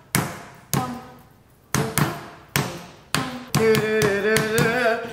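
Metal meat tenderizer mallet striking raw chicken breasts under plastic wrap on a wooden board, about half a dozen sharp, separate blows, flattening and tenderizing the meat. About three and a half seconds in, operatic singing with vibrato comes in over the strikes.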